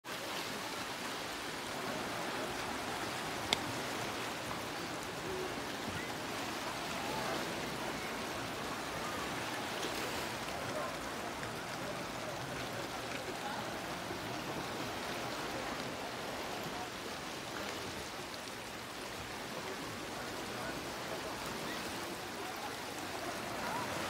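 Small waves of the Black Sea washing on a pebble shore: a steady rush of surf, with one sharp click about three and a half seconds in.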